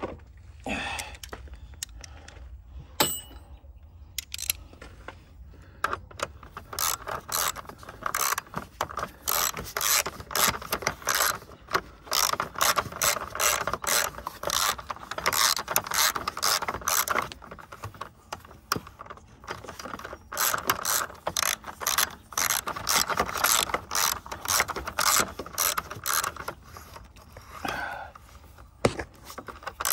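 Socket ratchet wrench clicking in quick runs of strokes as a bolt is driven back in and tightened; the clicking thickens about six seconds in and goes on until near the end.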